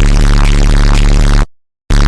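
Bass-boosted sound effect blaring at full volume, heavily distorted and clipped, with a deep steady bass under a harsh noisy top. It cuts off about a second and a half in and, after a short gap, starts again just before the end as the loop repeats.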